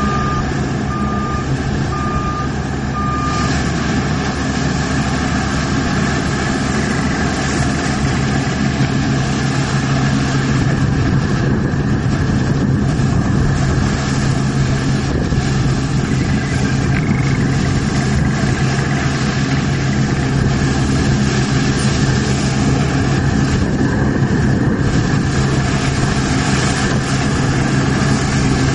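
New Holland CSX 7050 combine harvester running under load while cutting grain with a 6 m Geringhoff header: a steady engine drone with machinery noise, growing slightly louder as it comes closer. Four short beeps, about one a second, sound in the first few seconds.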